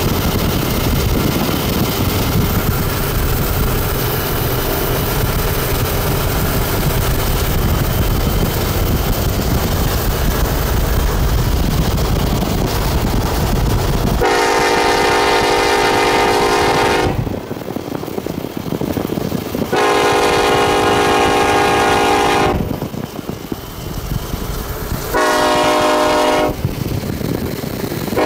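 Norfolk Southern SD70ACe diesel locomotive passing with a steady heavy rumble. About halfway through, its air horn sounds the grade crossing signal: two long blasts, a short one, then a long one that is still sounding at the end.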